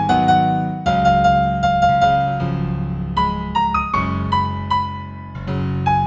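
Gentle new-age piano music in F major: a melody of single struck notes over low held chords.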